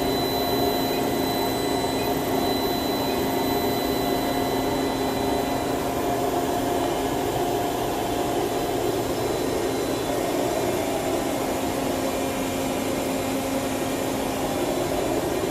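Steady whirring hum of running machinery, with several steady tones over it and no change in level.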